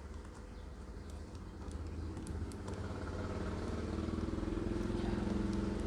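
A motor vehicle's engine running, growing louder over a few seconds and then easing off slightly near the end, with a few faint small clicks.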